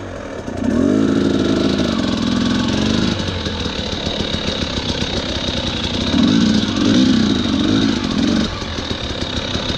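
Dirt bike engine being ridden over a rocky trail, its revs rising and falling with the throttle, with two stronger surges, about a second in and again about six seconds in.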